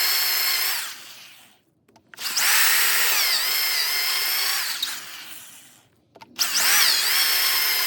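Half-inch DeWalt drill boring into a log with a large 1 3/4-inch Forstner bit at its slowest speed, in three runs with short stops between. The motor's whine dips in pitch as the bit bites into the wood.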